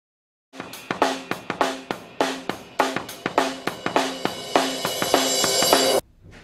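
Background music: a drum-kit intro with snare and cymbal hits in a steady rhythm, starting about half a second in and stopping abruptly near the end.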